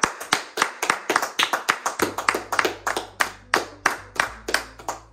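Two people clapping their hands, a quick steady run of about five or six claps a second that stops near the end.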